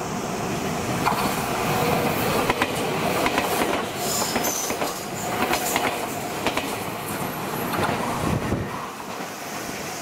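Meitetsu Komaki Line electric train passing close by, its wheels clacking over the rail joints. The sound dies down near the end.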